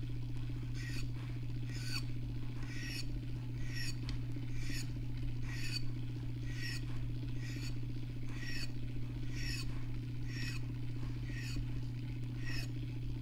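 Rod-turning motor running with a steady low hum while the epoxy-coated rod blank turns, and a short squeak repeating in a regular rhythm, roughly twice a second, from the rotating rod and turner.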